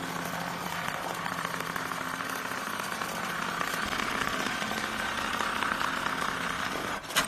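Manyi computerized pattern sewing machine running steadily, its needle stitching rapidly while the clamp frame carries the work through a straight-stitch pattern. A sharp click comes near the end.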